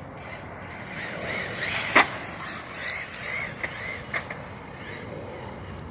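Arrma electric RC truck driving on asphalt, its motor whining up and down in pitch as the throttle changes. A sharp click about two seconds in is the loudest sound, with a couple of fainter ticks later.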